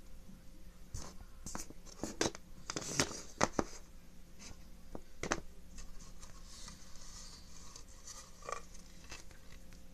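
Scattered light clicks, taps and scratchy rustles of hands handling things close to the microphone, busiest in the first half, over a faint steady hum.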